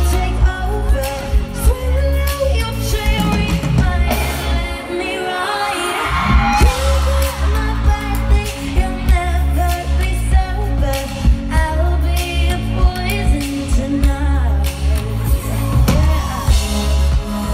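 Live pop concert sound: female vocal group singing over band and backing track with heavy pulsing bass. The bass drops out for a moment about five seconds in, then comes back.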